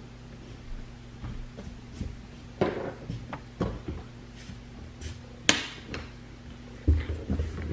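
Clothes being gathered and handled, with a few sharp knocks and taps spread through and a cluster of low thumps near the end, over a faint steady hum.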